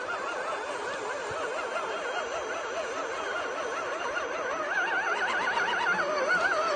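Whine of a brushless 950KV motor in an RC rock crawler, several tones whose pitch wavers quickly up and down as the truck crawls over rough ground. It grows louder about four and a half seconds in as the truck comes close.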